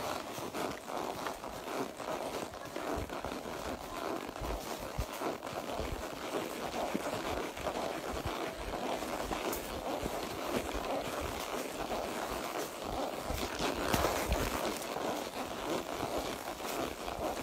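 Horse walking on a trail: uneven soft hoof falls with rustling and scraping.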